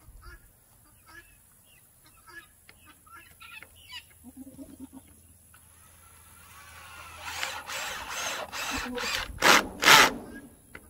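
Chickens clucking softly, then a hen's cackle that grows louder and ends in two loud squawks near the end.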